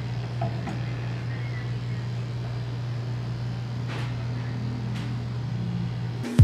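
Electric dog clipper running with a steady low buzz.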